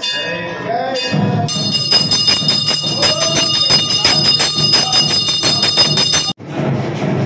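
Temple bells ringing rapidly and without pause during an aarti, with voices underneath. The ringing starts about a second and a half in and stops abruptly near the end.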